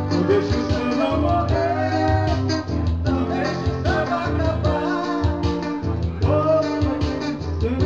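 Live band music: guitar with a steady percussive beat under a gliding melody line.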